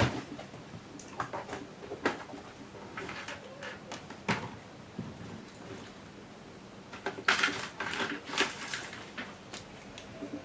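Hand screwdriver working screws out of the modules of a Sperry SP-40 autopilot computer rack: irregular metal clicks and knocks, with a quick run of rattling clicks about seven seconds in.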